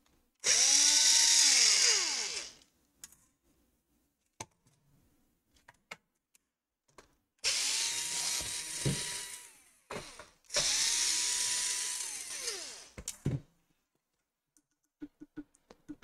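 Black+Decker cordless drill-driver backing out the screws of a laptop's plastic bottom case: three runs of the motor, each whining up to speed, holding a steady pitch for about two seconds and winding down as the trigger is let go. Small clicks and knocks of handling come between the runs.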